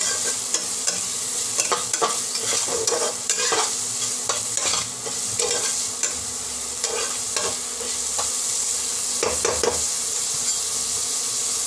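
Chopped onions and green chillies frying in hot oil with a steady sizzle, while a metal spatula stirs and scrapes around the nonstick pot in short, irregular strokes.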